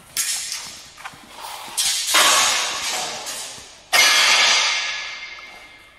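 Long steel bars clanging and scraping against metal as they are handled onto a roller table. Four sharp hits, each ringing out and fading over a second or two, the last two the loudest.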